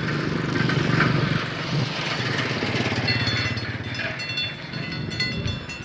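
A small motor vehicle's engine running close by, loudest about a second in, with high whistling tones coming in over the second half.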